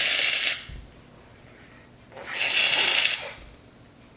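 Aerosol can of shaving cream spraying in two hissing bursts, one at the start and a longer one about two seconds in.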